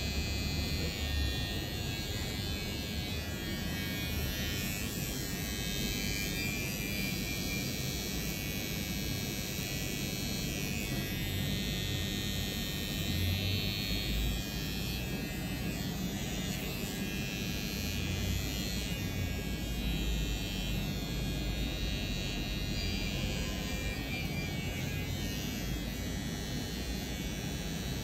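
Electric hair clippers running steadily as they cut hair.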